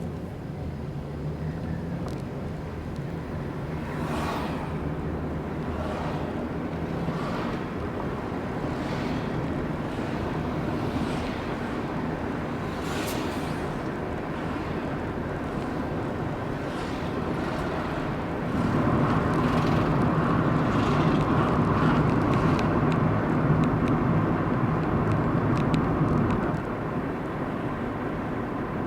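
A car with a faulty muffler being driven: a steady engine drone with road noise, growing louder for about eight seconds in the second half.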